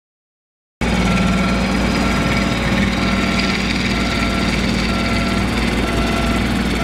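Small compact tractor's engine running steadily as it tows a rotary brush sweeper, combing the pitch turf. The sound cuts in abruptly about a second in.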